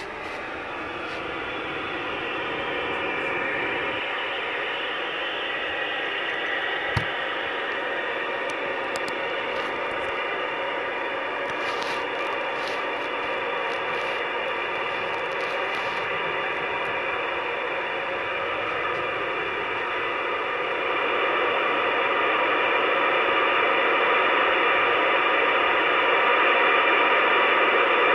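Steady hiss and static from a two-way radio speaker with no one transmitting, cut off above the radio's narrow audio band. It grows louder toward the end, and a single short knock comes about seven seconds in.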